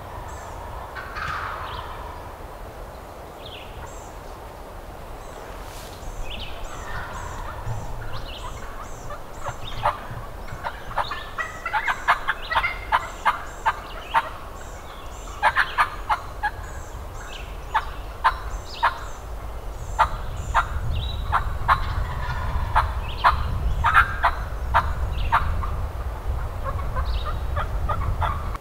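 Wild turkey gobblers gobbling in the woods: several gobbles, with a run of sharp rapid clicks through the middle and faint songbird chirps.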